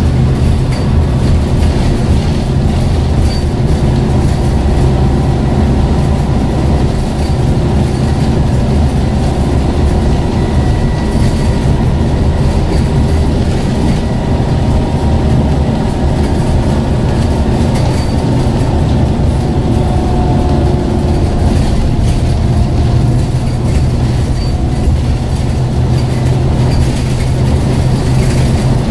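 Scania N94UD OmniCity bus under way, heard from a seat inside: the diesel engine and ZF gearbox give a loud, steady low drone, mixed with road noise.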